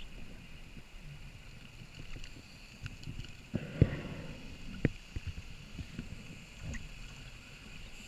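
Muffled underwater noise heard through a dive camera's housing: a low rumble with scattered small clicks, and two sharp knocks about a second apart near the middle.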